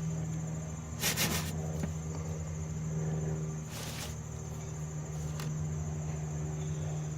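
A metal cookie sheet scraping as it is slid under a baked pizza on a ceramic pizza stone, in short scrapes about a second in and again near four seconds. Underneath runs a steady high-pitched whine and a low hum.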